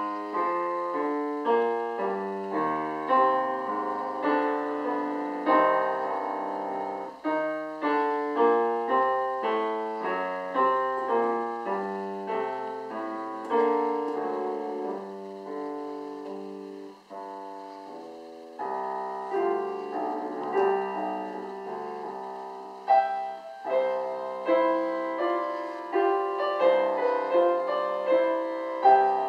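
Solo piano playing a classical piece in flowing notes and chords. It eases to a soft moment just past halfway, then comes back and grows louder toward the end.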